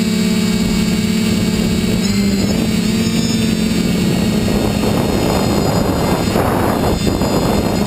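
FPV quadcopter's electric motors and propellers whining steadily, heard close from a camera mounted on the drone. For a few seconds in the second half a rushing of air covers the whine, which comes back near the end.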